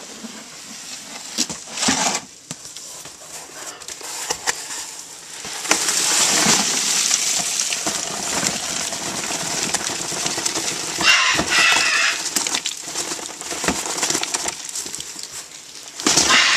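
Cardboard shipping box and egg-crate packing rustling and scraping under handling, with many small clicks. A pet bird calls loudly twice, about eleven seconds in and again right at the end.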